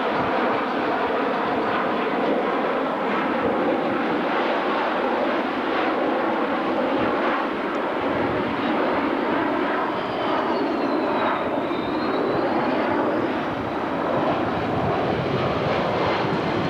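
Jet airliners (Boeing 737, DC-9 and Boeing 727, all JT8D turbofan-powered) flying a slow, low formation pass, their engines making a steady loud rushing noise. Around the middle, a high engine whine dips in pitch and climbs again.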